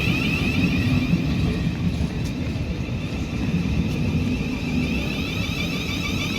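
Electric passenger train running: a steady low rumble with a high, steady whine over it.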